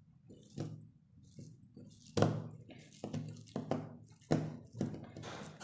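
Fingers kneading a soft, sticky sweet mixture in a small steel bowl: irregular soft thumps and squishes, about six in all, as the mixture is pressed against the bowl.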